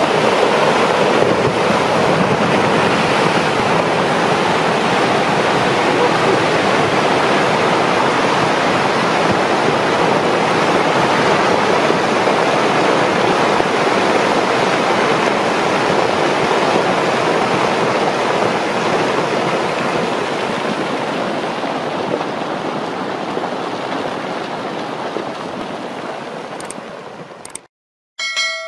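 Rockfall from a collapsing mountain cliff: a continuous rushing noise of tumbling rock and debris that eases off over the last several seconds and then cuts out. A short ringing chime follows near the end.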